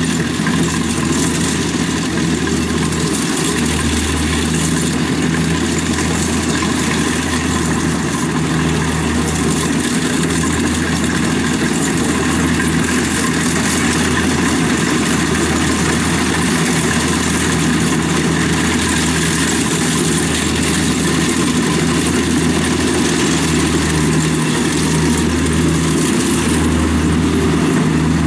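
The diesel engine of a Kubota DC70 combine harvester running steadily, a low rumble that swells and dips slightly every second or two as the machine works through soft mud.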